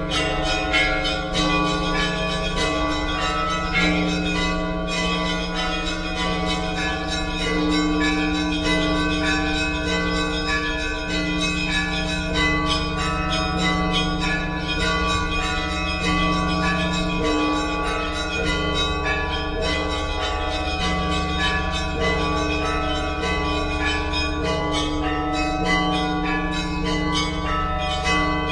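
Church bells ringing without pause: several bells of different pitches sound together and overlap, with frequent quick strikes over a deeper, lasting hum.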